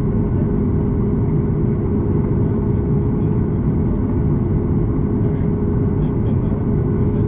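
Steady low rumble of an airliner's jet engines heard inside the cabin while the aircraft is on the ground, with a constant hum over it and no change in level.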